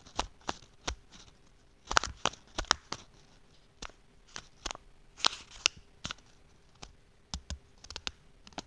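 Scissors cutting cold-shrink tape into short pieces, with the tape crackling as it is handled: a run of irregular sharp snips and clicks.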